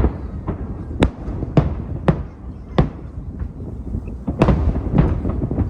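Aerial fireworks bursting: a string of sharp bangs at uneven intervals, a few to the second, over a continuous low rumble.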